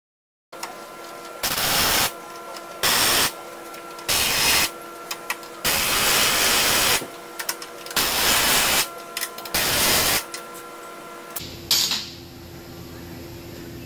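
Pneumatic impact wrench rattling in about six short bursts, each half a second to a second and a half, loosening the adjuster bolts of the vine trimmer's belt drive, over a steady machine hum. A sharp knock near the end.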